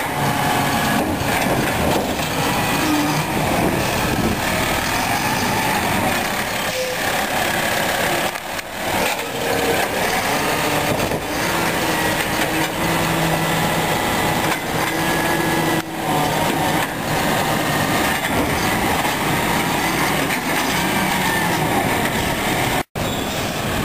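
Peterbilt 320 garbage truck with a Heil Formula 7000 automated side-loader arm: the truck's engine running while the hydraulic arm tips a cart over the hopper and lowers it back to the curb.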